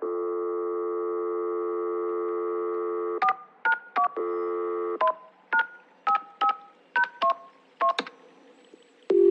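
Telephone dial tone, then touch-tone keypad beeps as a number is dialled, about ten short two-note beeps, with the dial tone coming back briefly between the first few and the rest. A low ringing tone starts just at the end.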